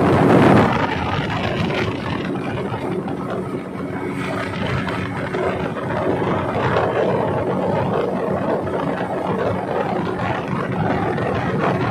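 River speedboat's engine running steadily at speed, its drone mixed with the rush of wind and water, heard from among the passengers aboard.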